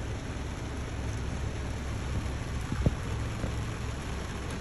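Heavy rain pelting a car's windshield and roof, heard from inside the cabin as a steady hiss over a low rumble. A single sharp thump comes nearly three seconds in.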